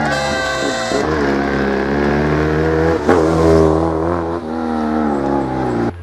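Steyr Puch 650T rally car's small air-cooled flat-twin engine revving hard through the gears: its pitch climbs, then drops at each shift about a second, three seconds and four and a half seconds in. There is a sharp crack about halfway through, and the sound cuts off suddenly near the end.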